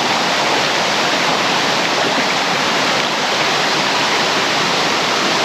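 Steady rushing of a small waterfall and creek pouring over rocks, an even roar of water.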